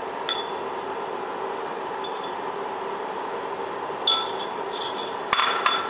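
Light clinks of a spoon against a dish as crushed cardamom is added to a pan of simmering milk payasam: one clink just after the start, a few about four seconds in, and a louder cluster near the end, each with a brief ring. A steady low hiss runs underneath.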